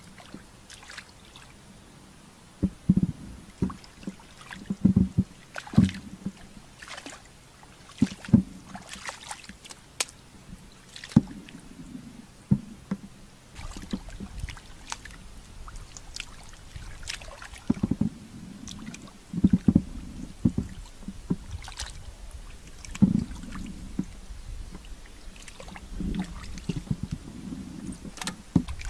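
Hands splashing and squelching in shallow muddy water, in irregular sloshes and slaps, while groping through the mud for fish.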